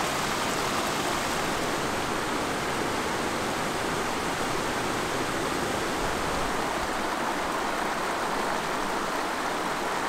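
Rushing water of a rocky mountain stream and waterfall, a steady, even rush with no change throughout.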